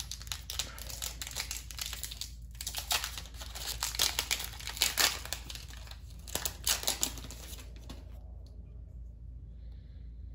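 Plastic booster-pack wrapper crinkling and tearing as a trading-card pack is opened and handled. The crackling stops about eight seconds in.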